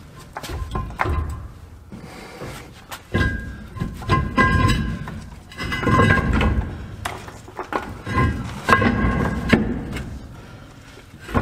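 Heavy truck brake drum being pushed and rocked onto the hub over the wheel studs: several bouts of metal scraping and clunking, with a metallic ringing tone on each push.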